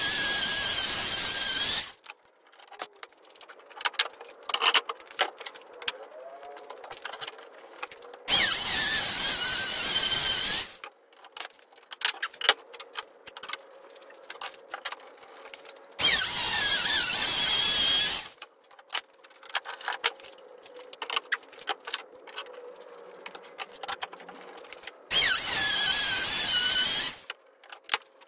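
Compact trim router cutting spline slots into the edges of hickory boards, run in four bursts of about two seconds each, with clicks and knocks of handling between the cuts.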